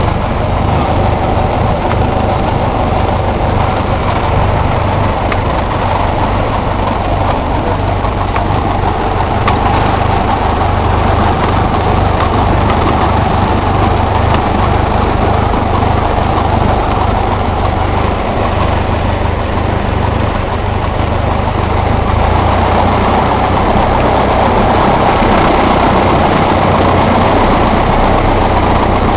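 Light aircraft's piston engine idling steadily, heard from inside the cockpit with a deep, even drone. It grows slightly louder about three-quarters of the way through.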